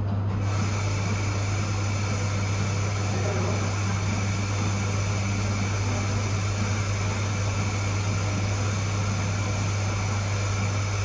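Steady mechanical hum: a strong, constant low drone with faint steady high-pitched tones above it, unchanging throughout.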